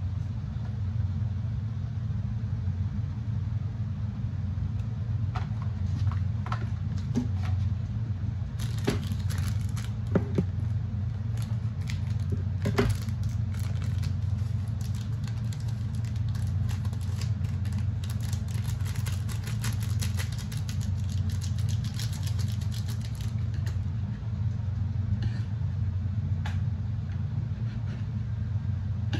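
Plastic tongs clicking and tapping against a wooden bowl as noodles are tossed with sauce. The clicks come thickest through the middle of the stretch. A steady low hum lies underneath.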